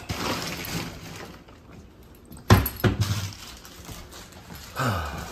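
A sharp knock about two and a half seconds in, the loudest sound, with short low vocal sounds falling in pitch just after it and again near the end.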